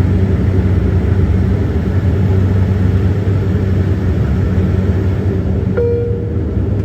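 SpiceJet airliner taking off: a loud, steady, low rumble. Near the end comes a short ringing tone that settles into one steady note.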